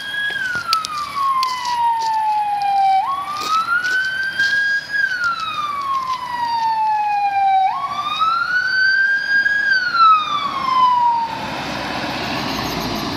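Electronic wail siren of an Opel Astra II fire service light rescue car, sweeping slowly down and up about every four to five seconds, then cutting off about eleven seconds in as the car passes with engine and tyre noise.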